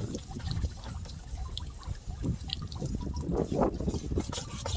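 Water dripping and trickling, with scattered light ticks: the water used for wet sanding.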